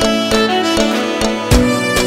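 Background music: a melody of sustained string-like notes, with a regular bass beat coming in about one and a half seconds in.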